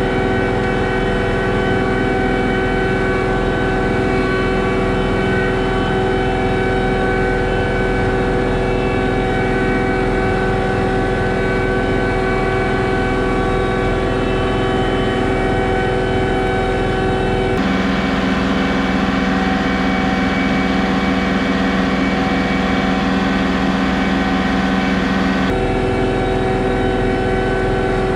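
John Deere 2038R compact tractor's three-cylinder diesel engine running steadily while pulling a middle-buster potato plow. Its tone shifts abruptly about two-thirds of the way through and switches back a few seconds before the end.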